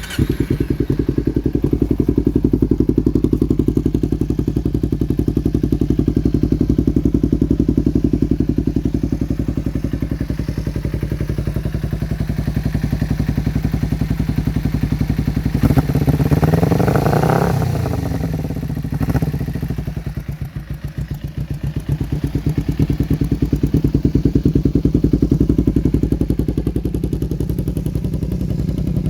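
Kawasaki Ninja 250R's carbureted parallel-twin engine running through a Taiwan-made Akrapovic aftermarket silencer. It idles with a steady exhaust pulse and is revved once past the middle, the pitch rising and falling, with a short blip just after, then settles back to idle.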